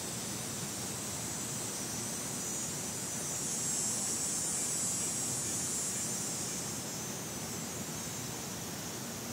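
Cicada buzzing: a high, continuous drone that swells louder around the middle and fades toward the end, over a faint low background hush.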